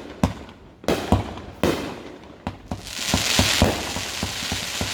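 Fireworks going off: several sharp bangs in the first three seconds, then from about three seconds in a dense, continuous crackling of crackle-effect shells.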